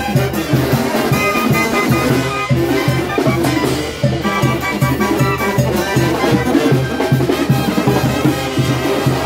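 Live banda-style wind band playing: clarinets carry the melody over brass, with a sousaphone bass pulsing in a steady beat. About three quarters of the way through, the clarinetists lower their instruments.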